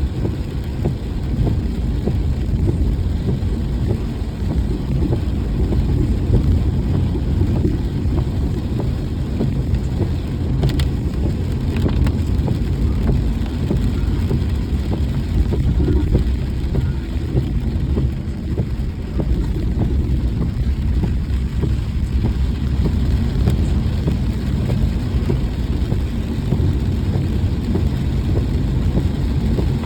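Vehicle cruising in the rain: a steady low rumble of engine and tyres on the road, with rain noise over it.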